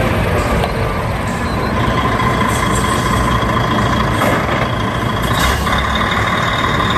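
Concrete mixer truck's diesel engine running as the truck drives slowly past, a steady rumble with a thin high whine over it.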